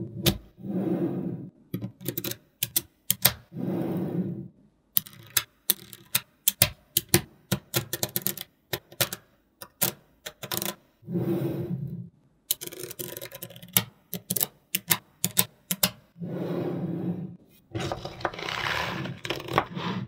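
Small magnetic balls clicking and snapping together in quick, irregular clicks, densest through the middle, between stretches of about a second of scraping and rubbing as the balls are slid and worked by hand.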